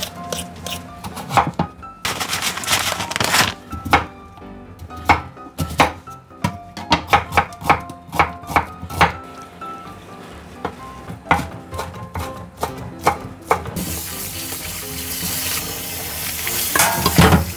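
A kitchen knife striking a cutting board in irregular strokes, over background music. From about three-quarters of the way in, a tap runs steadily and grows louder.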